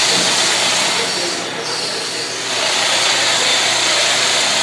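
Wood lathe with a copy attachment turning a baluster blank: a steady hissing rush of the cutter shaving the spinning wood over the hum of the lathe, easing briefly about a second and a half in.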